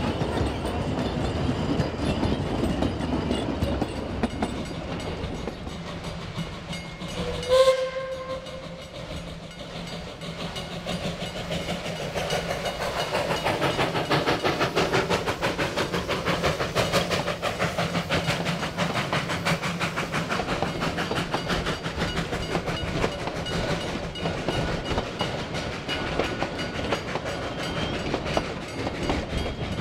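Narrow-gauge steam train running past close by, its carriages clattering over the rail joints. A short, loud steam whistle blast comes about seven seconds in. Then a dense, rapid clatter builds as the train runs on.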